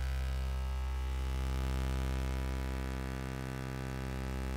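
Osci-render's vector-synthesis audio output, drawing rotating 3D text for an oscilloscope display: a low, steady buzz rich in overtones.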